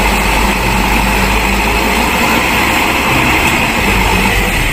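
Mitsubishi Fuso dump truck's diesel engine running steadily as its hydraulic tipper raises the bed.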